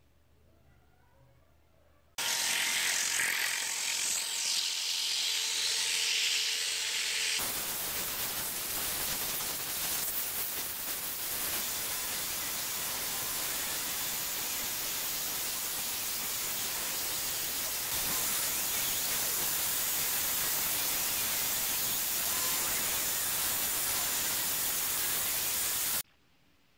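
Steady, loud hissing noise that cuts in and out abruptly in three stretches, the first one brighter and higher than the two that follow.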